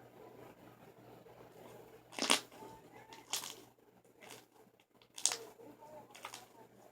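Pink fluffy slime being stretched and squished by hand, with three sharp tearing pops.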